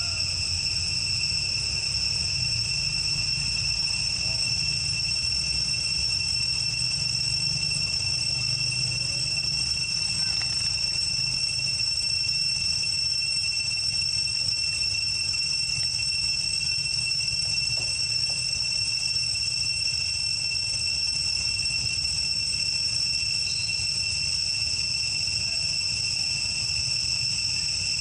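Insects droning steadily in a continuous high-pitched chorus of several even tones that never break, over a low rumble.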